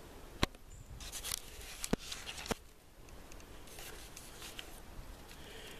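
Handling noise as a hand-held camera is turned around: three sharp clicks, about half a second, two seconds and two and a half seconds in, with rustling between them and again around four seconds.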